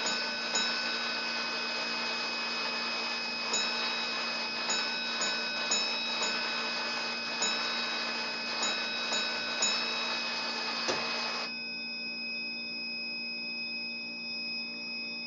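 Gamewell master fire alarm box striking its bell in code: one stroke near the start, then a full round of box number 1-4-1-3, tapped out as one stroke, four, one and three. About eleven seconds in there is a knock, and the box's running mechanism stops, ending the coding.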